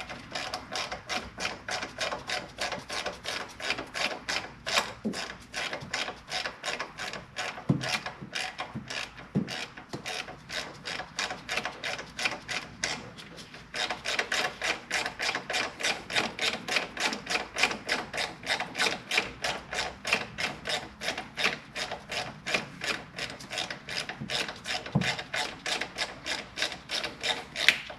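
Hand ratchet clicking steadily, about three or four clicks a second, as it runs down a small 3/16 hex-head bolt. It breaks off briefly about halfway through, with a few louder knocks of the tool here and there.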